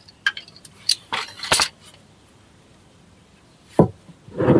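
Short metallic clinks and a knock of tools and parts being handled, with a brief scraping rustle about a second in and a longer one near the end.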